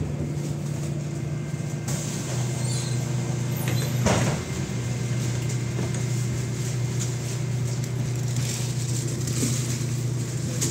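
MAZ-107 city bus heard from inside the passenger cabin: its diesel engine runs steadily, the note stepping a little lower about two seconds in. One brief loud noise comes about four seconds in.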